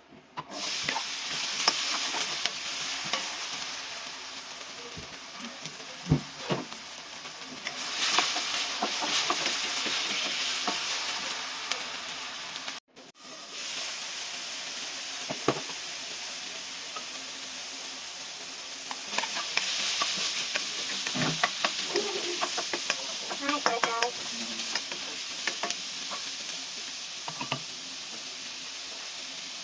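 Food sizzling in a hot frying pan as it is sautéed and stirred, with a steady hiss and frequent scrapes and clinks from the stirring utensil. The sound cuts out for a moment about halfway through.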